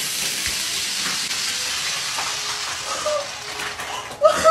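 Foaming ketchup hissing as it sprays out of a squeeze bottle under gas pressure built up by baking soda, fading away over about three seconds. A woman cries out near the end.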